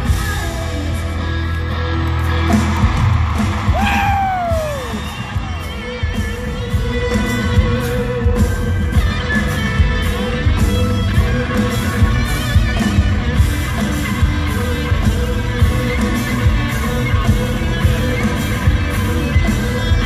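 Live country-rock band playing in an arena, heard from the audience: electric guitars, drums and singing. A loud falling whoop about four seconds in, then the drums come back in with a steady beat from about six seconds on.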